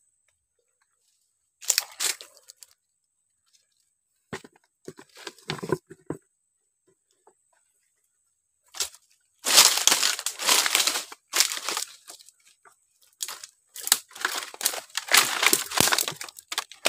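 Dry fallen palm fronds and leaves crunching and rustling in irregular bursts as they are pushed and pulled aside by hand, with short bursts in the first half and longer, louder stretches of crackling after about nine seconds.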